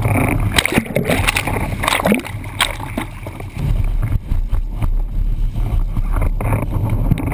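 Windsurf board planing through chop: water rushing and slapping against the board, with spray hitting a GoPro mounted on the boom. A steady muffled rumble runs underneath, with many sharp irregular knocks.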